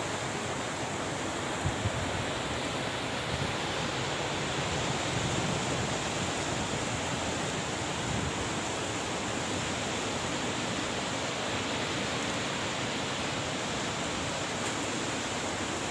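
Steady rushing of a flood-swollen river running high past a stone embankment, with a couple of brief low thumps about two seconds in.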